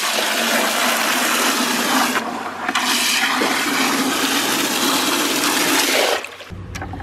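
Water gushing from a garden hose into plastic buckets, filling them. The rush is briefly softer about two seconds in and cuts off about six seconds in.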